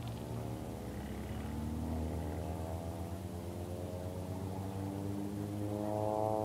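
An engine, most likely a vehicle's, accelerating: its pitch climbs steadily, drops suddenly about two seconds in as at a gear change, then climbs again and drops once more near the end, over a steady low hum.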